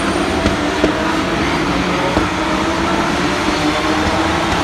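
Several Porsche race cars with flat-six engines running together as a pack passes through a corner, a steady blend of overlapping engine notes.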